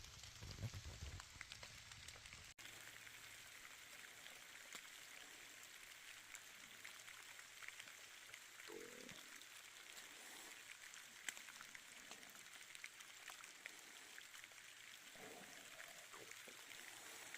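Faint rain falling: a soft, even hiss with scattered small ticks of drops.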